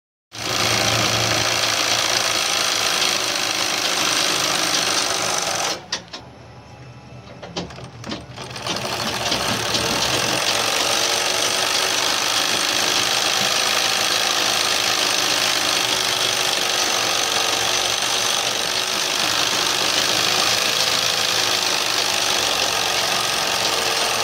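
Industrial overlock sewing machine running fast as fabric is fed through it. It stops about six seconds in, pauses for about three seconds, and then runs steadily again.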